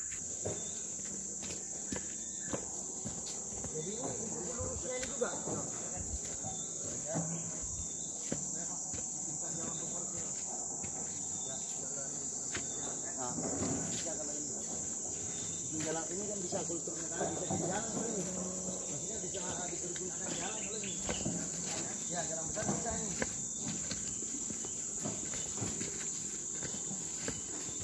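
Insects drone steadily in a continuous high pitch. Footsteps sound on a dirt path, and faint voices talk in the background now and then.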